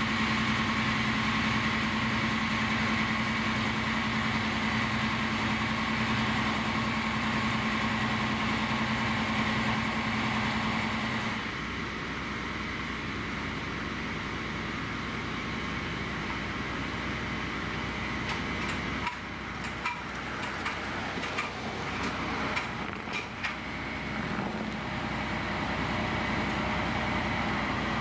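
Fire trucks' diesel engines idling, a steady hum with a steady pitched tone that drops away about eleven seconds in. A few light clicks and knocks come between about 19 and 24 seconds.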